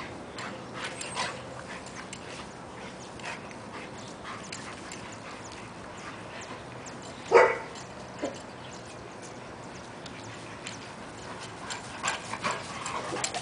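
A bullmastiff and a mastiff playing rough, with scattered short dog sounds, one loud bark about seven seconds in, and a quick run of short sounds near the end.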